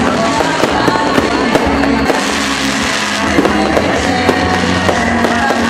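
Fireworks going off in a rapid run of crackles and bangs, over loud music.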